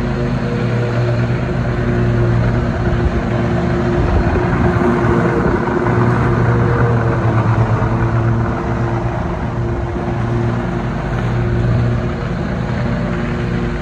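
Zero-turn riding mower's engine running steadily as the mower drives across the lawn.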